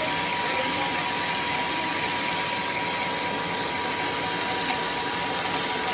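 Homemade band sawmill running without cutting: a steady whirring machine noise with a thin, constant high whine.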